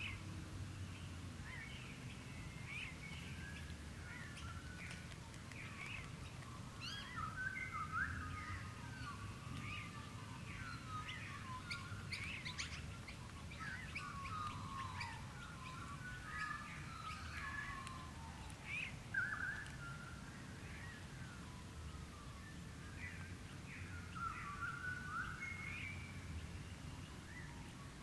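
Dawn chorus: many birds calling over one another, with short chirps and whistled notes throughout and a low steady rumble underneath.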